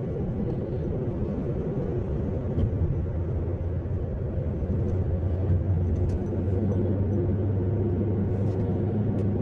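Steady low rumble of a car's engine and road noise heard from inside the moving car, settling into an even hum about two-thirds of the way through.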